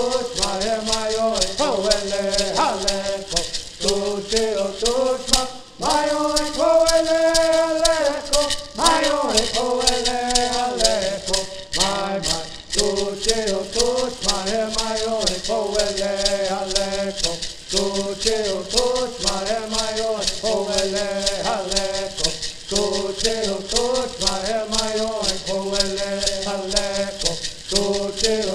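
A group of men singing a traditional Serrano bird song in unison, accompanied by the fast, steady shaking of gourd rattles.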